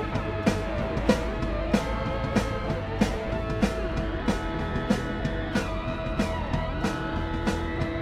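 Background music with guitar over a steady drum beat, about one and a half beats a second.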